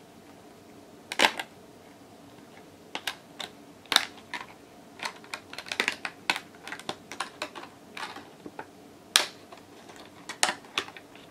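Clear plastic retail packaging being handled and pried at by hand: irregular sharp plastic clicks and crackles. The loudest come about a second in, at about four seconds and near nine seconds, and they come thickest in the middle.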